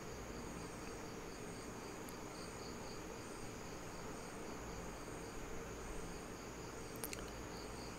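Faint, steady insect chirping: a high pulsing trill repeating about twice a second, over a low background hum.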